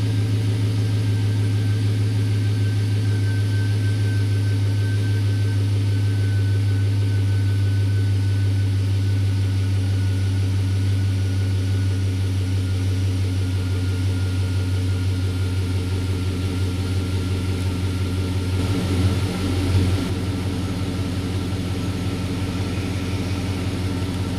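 2003 Chevy Avalanche V8 engine idling steadily, a constant low hum.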